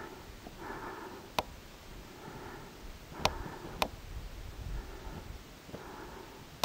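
Footsteps crunching down loose rock and scree, with a few sharp clicks of stones knocking together.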